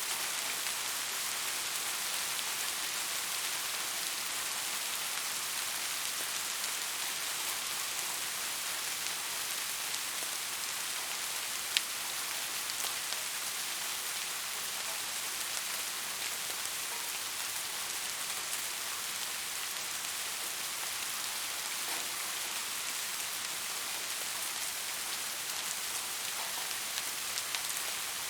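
Steady rain falling, an even hiss with scattered individual drop ticks, one sharper tick about twelve seconds in.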